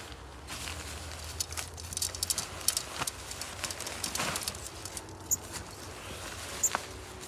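Nylon tent fabric rustling as it is pulled and shaken out of its bag, with scattered clicks and taps as tent poles are fitted together.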